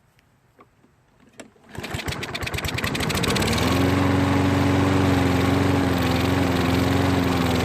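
Toro lawn mower engine catches about two seconds in on starting fluid sprayed into the carburetor, then runs up to a steady speed. It runs only on the starting fluid: debris from a bad tank of gas has clogged the carburetor jet.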